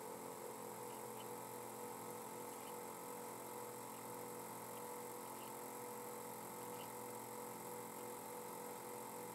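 Steady electronic hum and hiss with a few constant tones, and faint soft ticks about every second and a half.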